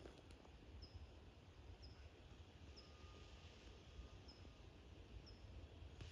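Near silence outdoors: faint low background noise with a short, high chirp repeating about once a second.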